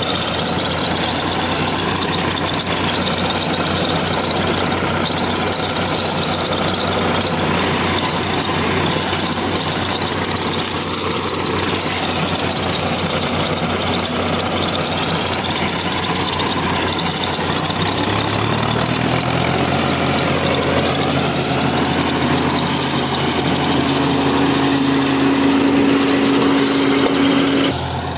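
VST Shakti 9054 DI tractor's Kirloskar diesel engine running under load while driving a thresher, with the thresher's dense, steady mechanical noise. About two-thirds of the way through, the engine's steady drone comes through more clearly.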